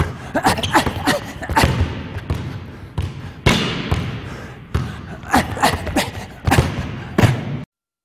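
Basketball dribbled hard on a gym floor in a quick run of crossover bounces, a few a second, echoing in the hall; it cuts off abruptly just before the end.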